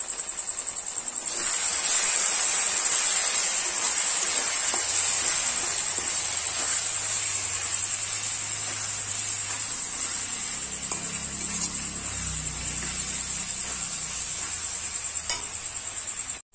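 Onion-tomato masala, with chilli powder just added, sizzling and frying in a kadai as it is stirred and scraped with a metal spoon; the sizzle swells about a second in. Crickets chirr steadily and high-pitched underneath.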